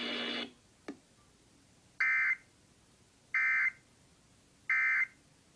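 Emergency Alert System end-of-message (EOM) signal: three short, identical bursts of warbling digital data tones, about 1.3 seconds apart, closing a Required Monthly Test. A brief click comes just before the first second.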